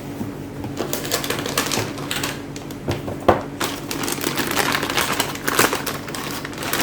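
Graphics card being fitted into a PC tower case: a run of irregular clicks and light plastic-and-metal rattles from hands working the card and case.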